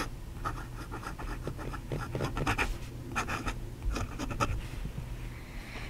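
The 14k gold nib of a vintage Howard fountain pen writing on paper: a run of short, irregular scratchy strokes as the letters are formed.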